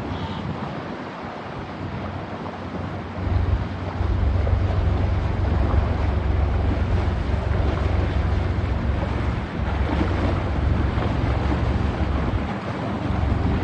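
Wind buffeting the microphone over a steady rushing noise, the low rumble growing much stronger about three seconds in and staying gusty.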